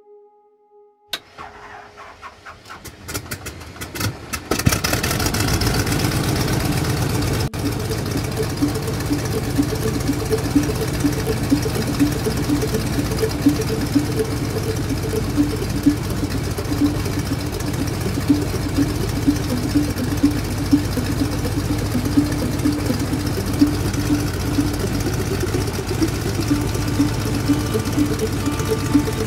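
A car driving on a gravel road, heard from inside the cabin: the engine runs steadily with a pulsing low drone, and frequent sharp ticks and knocks come from the tyres on loose gravel. The sound builds up over the first few seconds before settling into a steady run.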